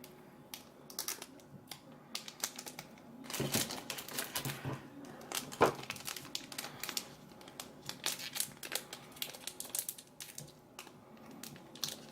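Foil wrapper of a trading card booster pack crinkling, with irregular sharp clicks and snips, as scissors struggle to cut it open; one louder snap comes about five and a half seconds in.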